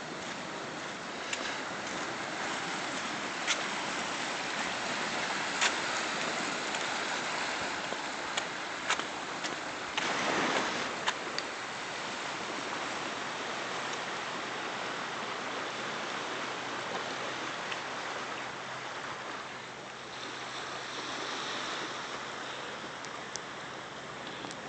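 Ocean surf washing on a rocky shoreline: a steady rushing hiss, swelling louder for about a second around ten seconds in, with a few sharp clicks scattered through it.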